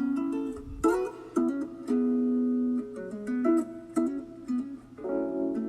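Background music: a slow, plucked string-instrument accompaniment of single notes and held chords, with no voice over it.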